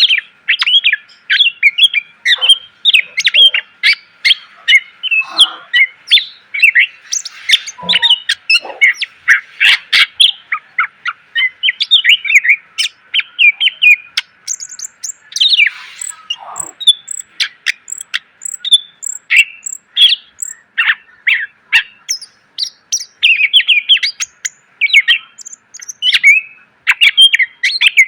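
Cucak ijo (green leafbird) singing nonstop: a fast, dense run of sharp chirps and whistled phrases packed with mimicked fills, broken now and then by a longer falling note.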